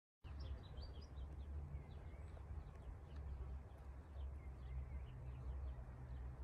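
Outdoor ambience: wind rumbling on a phone's microphone, swelling and easing, with small birds chirping repeatedly.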